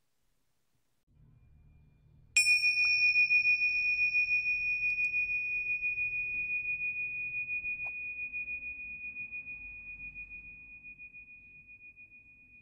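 A bell struck once about two seconds in, ringing a single high, clear tone that fades slowly with a wavering pulse.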